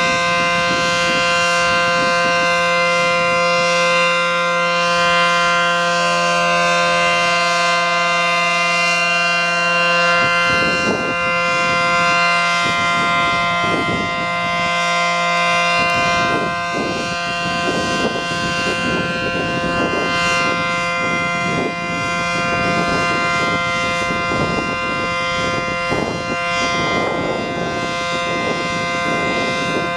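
ACA Allertor 125 electromechanical outdoor warning siren sounding its steady full-alert signal: a sustained dual tone from its 9- and 12-port rotor, rich in overtones.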